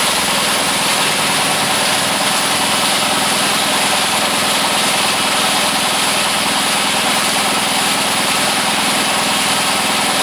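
A motor running steadily and evenly, with no change in speed.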